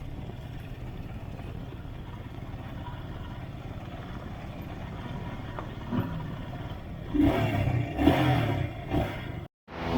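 Royal Enfield Himalayan's single-cylinder engine running with a steady low rumble, then a few louder swells of revving in the last few seconds before the sound cuts out abruptly.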